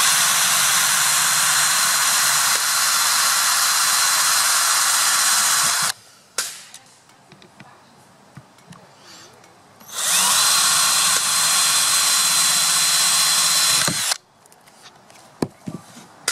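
Cordless drill driving a long screw into a PVC pipe wall. It runs steadily for about six seconds, stops, then runs again for about four seconds, with small handling clicks after it stops.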